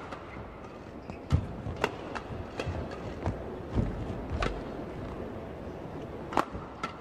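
Badminton racket strings hitting a shuttlecock in a fast doubles rally: sharp hits about every half second, a gap, then a hard jump smash about six seconds in. Players' feet thud on the court mat in between.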